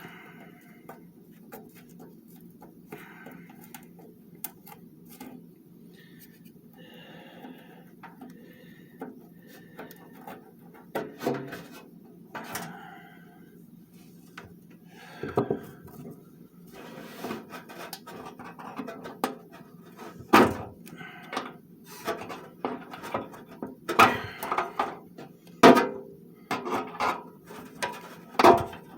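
Clicks, taps and knocks of hand work on a box fan's wiring as the motor leads are worked off the rotary switch's connectors. The knocks are sparse at first and come louder and more often in the second half.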